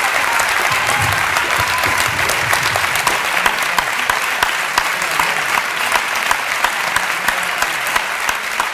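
Audience applauding: dense, steady clapping from many hands, easing off slightly near the end.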